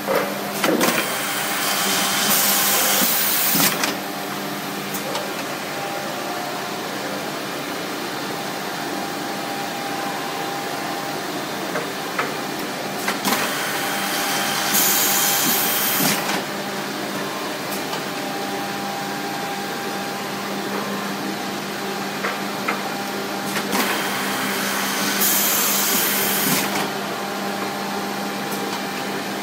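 Busellato multi-spindle boring machine running with a steady motor hum, drilling a melamine-faced chipboard panel in three cycles of about three seconds each, each one a louder spell of cutting noise with a high hiss.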